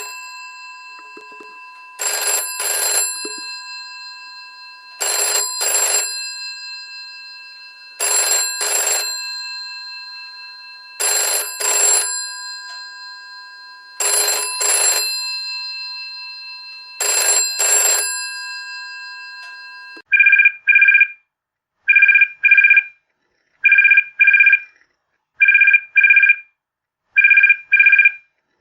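A telephone ringing in short double rings about every three seconds, its bell tones carrying on between the rings. About twenty seconds in it changes to a different phone's electronic ring: a two-tone beep roughly every two seconds, each just under a second long.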